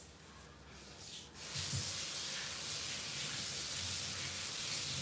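Kitchen tap turned on about a second and a half in, then water running steadily into the sink.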